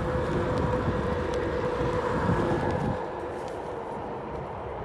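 Onewheel GT electric skateboard riding along, its hub motor giving a steady whine over a low rumble of wind and road noise; the rumble drops a little about three seconds in.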